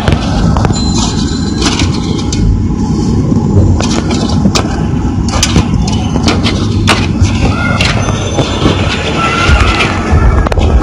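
Thin metal motherboard I/O shield being pressed and snapped into the rear opening of a PC case, giving a scatter of sharp clicks and metallic snaps over a steady low rumble.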